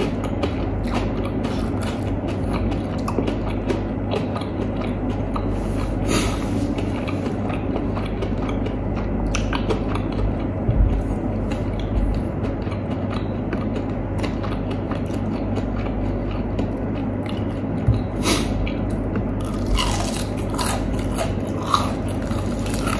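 Close-miked chewing and crunching of crispy fried chicken, with many small crackling clicks as the crisp coating is pulled apart by hand, over a steady low hum.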